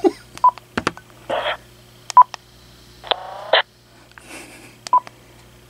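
Uniden Loud&Clear cordless handset keypad beeping: three short single beeps about two seconds apart, with sharp button clicks and two brief pitched bursts from the handset's speaker between them.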